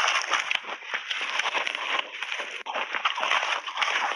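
Crushed milk-powder ice crunching and crackling as a metal spoon and a gloved hand dig and scoop through it in a steel bowl, a dense run of small rapid crunches.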